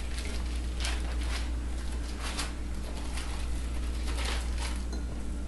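Plastic Ziploc bag of salmon and marinade crinkling in several short rustles as the air is pressed out and the bag is sealed, over a steady low hum.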